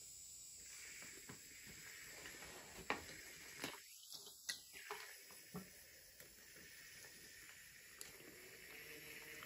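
Light clicks and knocks of wooden toy train engines and carriages being handled on wooden track, a handful of them between about three and six seconds in and one more near eight seconds, over a faint hiss.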